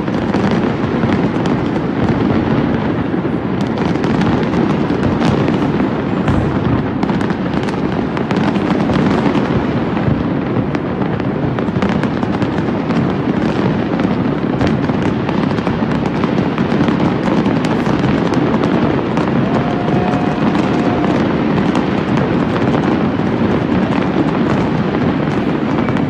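Large fireworks display at its height: a dense, unbroken barrage of overlapping booms and crackles.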